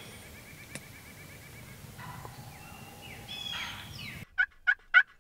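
Wild turkeys calling: a faint rattling gobble from a tom in the first two seconds, then scattered softer turkey calls. About four seconds in, a loud, even series of short yelps begins, about three a second.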